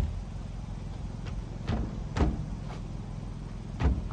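Several light knocks and taps of a spirit level and lumber being handled against a wooden post, the loudest about two seconds in and just before the end, over a steady low hum.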